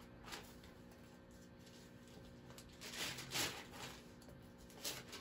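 Faint rustling of Bible pages being turned, a few soft handling sounds over a low steady hum.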